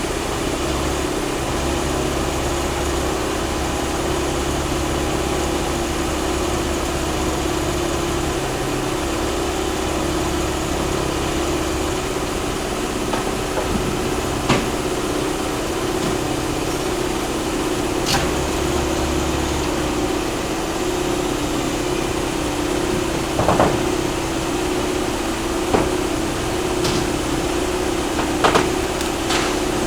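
Hitachi 138 excavator's diesel engine running steadily. A handful of sharp knocks come in the second half.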